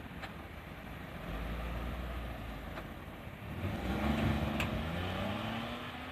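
A road vehicle drives past with a low engine rumble. Near the middle it gets louder and the engine note rises as it accelerates.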